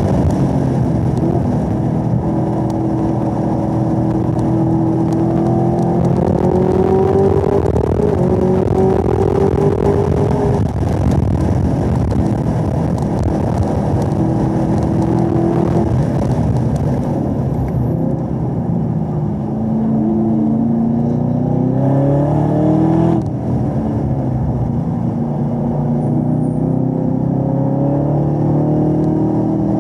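2017 Camaro ZL1's supercharged 6.2-litre V8, heard from inside the cabin at track speed: it holds high revs on a straight, then eases off about halfway through as the car brakes and the automatic downshifts from fifth to third for a corner. The revs climb again near the end.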